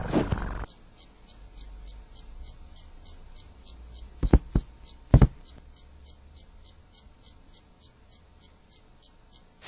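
Faint, rapid, even ticking, about four ticks a second, with two sharp knocks around the middle.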